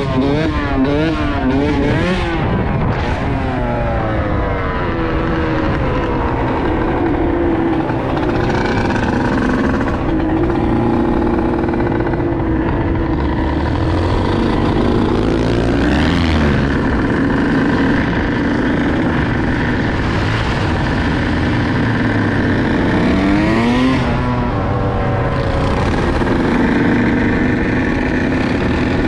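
Dirt bike engine running under way, its pitch rising and falling as it revs: a quick run of revs near the start, then longer climbs about halfway through and a few seconds before the end.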